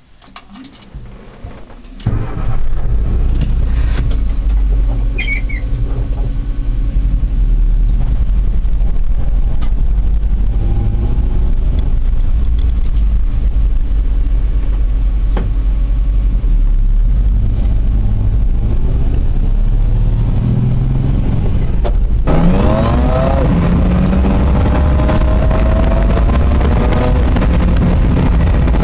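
Subaru EJ22 2.2-litre flat-four engine in a VW Type 2 bus, heard from inside the cabin as the bus drives off. After a few faint clicks, a loud low engine and road rumble sets in suddenly about two seconds in. Near the three-quarter mark the engine revs up, rising in pitch as it accelerates.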